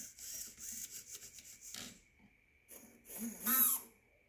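Small electric RC motor running from a waterproofed ESC: a rasping whir with a steady high whine. About three and a half seconds in it revs up briefly and louder, its pitch bending.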